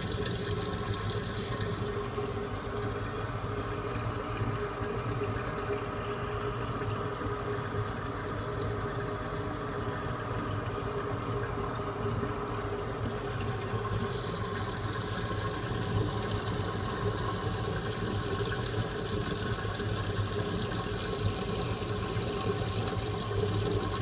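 Steady rush and trickle of water from a reef aquarium's circulation and filtration, over a low, even pump hum.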